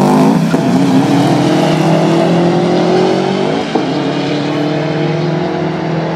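Two cars, a Dodge Charger and a Subaru Impreza WRX, accelerating hard away from the drag strip start line. Their engine note fades slowly as they pull away, with a brief break in the note about three and a half seconds in.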